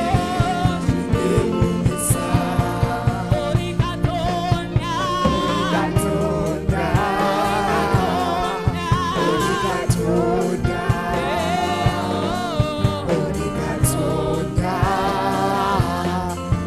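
Live gospel praise-and-worship song: several singers with microphones over a band with a steady drum beat.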